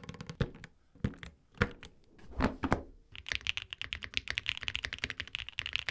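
Custom mechanical keyboard fitted with Mode keycaps: a few separate key clacks, then from about three seconds in fast, continuous typing.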